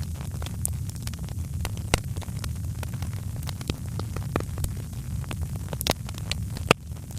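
Wood fire crackling in a fireplace: irregular sharp pops and snaps over a steady low rumble, with one louder pop near the end.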